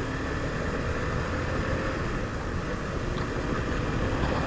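Motorcycle engine running on the move, with steady wind rush over the microphone.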